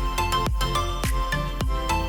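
Background electronic music with a steady beat, about two beats a second, and sustained melodic notes.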